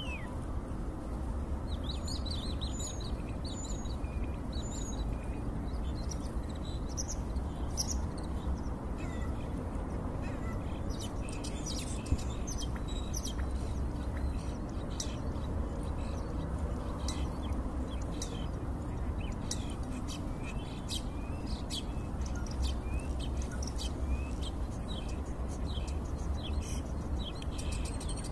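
Starling singing a rambling run of short whistles, clicks and chirps, over a steady low background rumble.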